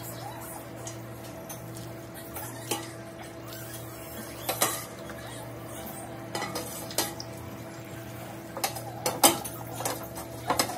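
A ladle clinks and knocks against the pot and the bowl while broth is ladled into a bowl of noodles. The knocks are scattered and grow more frequent near the end, over a steady low hum.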